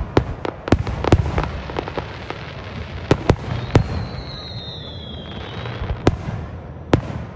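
Aerial firework shells bursting: a rapid, irregular string of sharp bangs over the first two seconds, then a handful of single bangs spaced a second or more apart. A high whistle lasts about two seconds midway.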